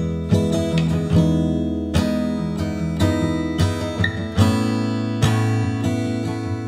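Background music: strummed acoustic guitar chords at a steady pace, with a change of chord about four seconds in.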